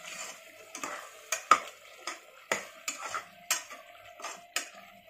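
A metal ladle stirring a vegetable and curd masala in an aluminium pressure cooker, knocking and scraping against the pot in about a dozen irregular clinks.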